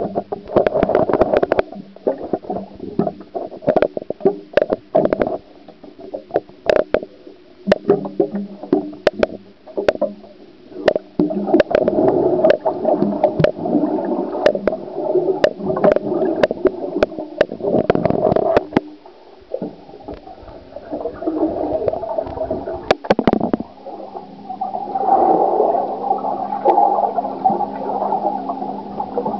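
Muffled underwater sound in a swimming pool as picked up by a submerged waterproof Fujifilm FinePix Z33WP compact camera: sloshing and bubbling water with many sharp clicks and knocks, over a steady low hum. The sound dips briefly about two-thirds of the way through.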